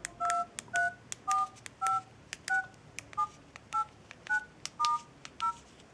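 L8STAR BM10 mini phone's keypad playing DTMF key tones as its keys are pressed: about ten short two-tone beeps, roughly two a second, each starting with a click.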